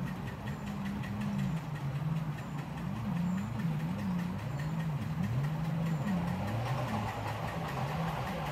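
Miniature railway locomotive hauling a passenger train toward the listener, its engine running with a wavering low note and growing louder near the end.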